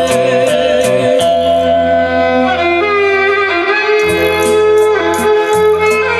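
Instrumental passage of a Thai-language song played back through Celestion SL6si bookshelf speakers driven by an RCF AM-30 vintage tube amplifier, heard in the room. A sustained lead melody with slides runs over a stepping bass line and regular cymbal ticks.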